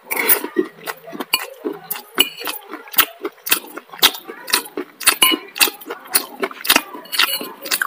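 Close-up eating sounds: open-mouthed chewing and lip smacks several times a second, with a metal spoon clinking and scraping against a ceramic bowl.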